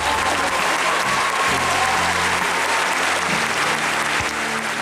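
Audience applauding, with music playing underneath that has steady bass notes changing every second or so.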